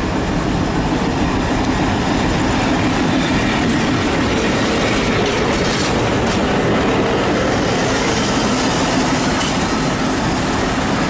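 Diesel locomotive passing close by at low speed, a loud, steady rumble of engine and wheels on the rails with a low hum running through it.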